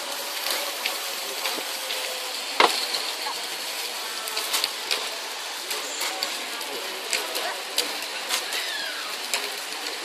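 Aerosol spray-paint cans hissing, with scattered clicks and taps of cans, lids and tools handled on a table. There is one sharp click about two and a half seconds in.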